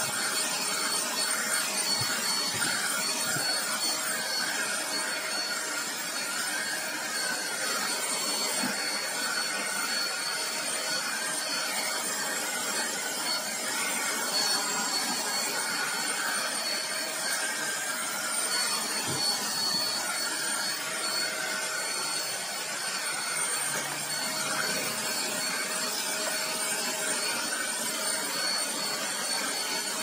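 Handheld vacuum cleaner running steadily with a high whine as its nozzle sucks dust off an electric fan's wire guard, with a few faint knocks.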